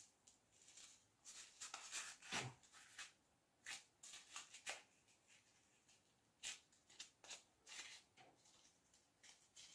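Faint, scattered rustles and soft scrapes of hands handling and pressing a glued EVA foam flower.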